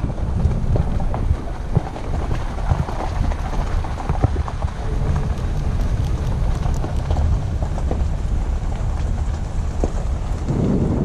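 Wind buffeting the microphone as a steady low rumble, with scattered light clicks and knocks over it.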